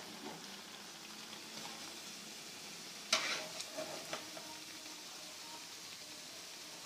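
Bread kababs sizzling in ghee in a pan on a low flame, a steady faint frying hiss. About three seconds in, a utensil knocks sharply against the pan, followed by a couple of lighter knocks, as the fried kababs are lifted out.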